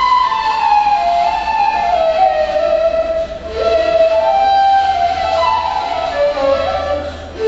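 Two neys, Turkish end-blown reed flutes, playing a slow melody of held notes that glide from one pitch to the next, with brief breaks for breath about three seconds in and near the end.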